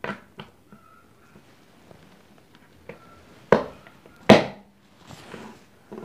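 Plastic parts of a push-button thermos cap being handled and pressed together during reassembly: a few light clicks, then two loud sharp clicks about three and a half and four and a quarter seconds in.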